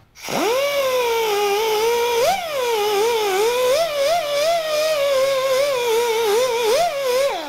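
Straight die grinder spinning a sanding drum inside the bore of a cast bronze capstan: a high whine that winds up at the start, wavers in pitch as the drum bears on the bore, and winds down near the end. The drum is sanding out a high spot of a couple thousandths in the bore.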